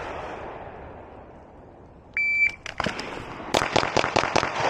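A shot timer's start beep, then about a second and a third later five rapid 9mm pistol shots, about a fifth of a second apart, from a Glock 47 fitted with a Radian Ramjet compensator.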